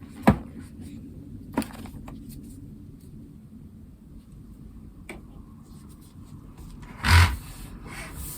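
Unboxing handling noises: two sharp knocks or clicks in the first two seconds, then a short scraping rustle about seven seconds in, over a low steady hum.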